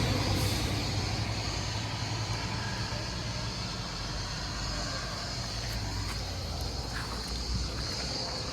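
A passing car fading away in the first second, then a steady outdoor background of low rumble with a constant high hiss.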